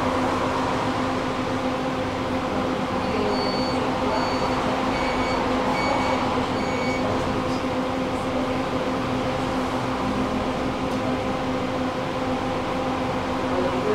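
Tram running, a steady rumble with a constant electric hum; for a few seconds near the middle a quick series of short high beeps sounds.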